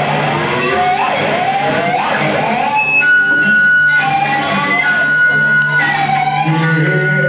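Live rock band playing, led by electric guitar with bending, sliding notes over a steady low note. A high tone is held from about three seconds in.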